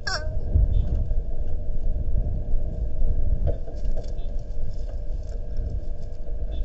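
Outdoor nest-camera microphone noise: an uneven low rumble with a steady electrical hum tone. A brief sharp falling cry comes right at the start, and a few faint short sounds about three and a half seconds in.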